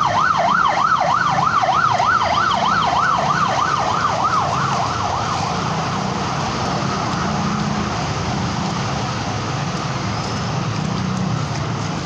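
Emergency vehicle siren sounding a fast yelp, about three rising-and-falling sweeps a second, fading away about five seconds in. Under it is a steady rushing noise with a low engine hum from traffic moving through the flooded road.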